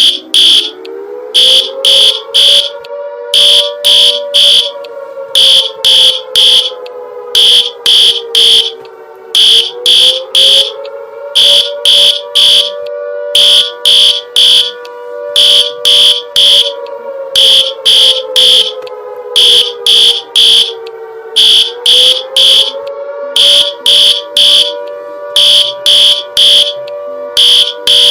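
Emergency alert (EAS-style) alarm: rapid high-pitched electronic beeps in short repeated groups sounding over a low wailing siren tone that rises and then slowly falls about every eleven seconds.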